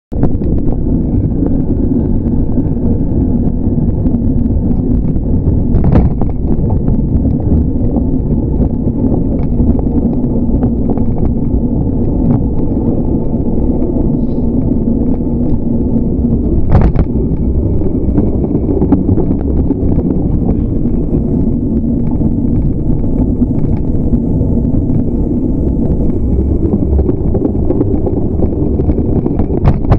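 Wind buffeting the microphone of a camera on a moving bicycle: a steady low rumble with many small clicks and rattles, and two sharper knocks about six and seventeen seconds in.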